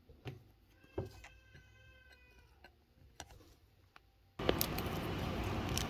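A few soft taps and clicks of trading cards being handled. About a second in there is a faint high-pitched sound that lasts under two seconds and is broken into short pieces. A steady hiss comes in near the end.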